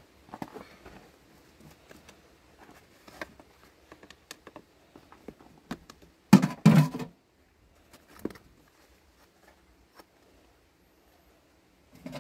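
Scattered taps, knocks and scrapes of a steel bar and gloved hands on a wooden casting flask packed with moulding sand in a steel wheelbarrow, as the sand mould is broken open, with one louder clatter lasting under a second about six seconds in.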